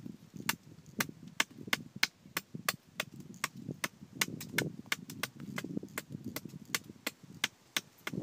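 Rapid series of sharp knocks, about three a second, over a low rustling.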